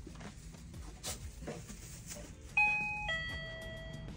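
Electronic two-note ding-dong door chime, a higher note then a lower one, sounding about two and a half seconds in and ringing on: a shop's door-entry chime signalling someone coming through the door.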